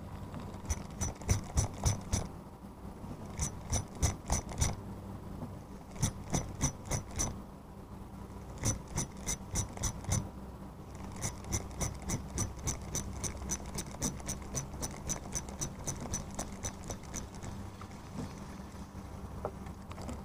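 Small spinning reel being wound, its gears clicking about five times a second in spells of one to a few seconds with short pauses between, the stop-and-go winding of a jig being worked back in. The longest spell runs about six seconds.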